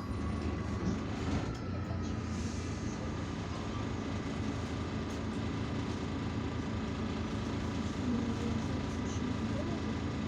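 Irisbus Citelis 12M city bus under way, heard from inside the cabin: steady engine and road rumble with a faint steady whine above it.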